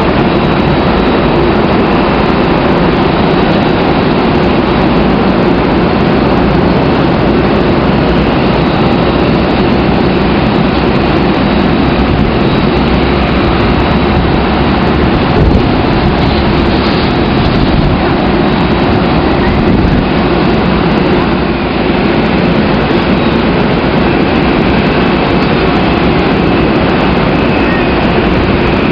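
Loud, steady jet engine noise from an Airbus A320 airliner moving along the runway, with no breaks or sudden events.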